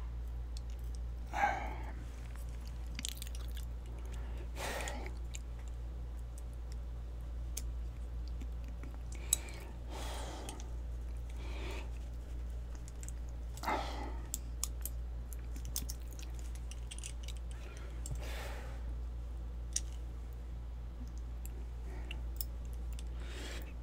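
Hands handling the small metal parts of a gutted pin-tumbler lock over a rubber mat: scattered light clicks and scrapes, with a sharp click about nine seconds in, over a steady low hum.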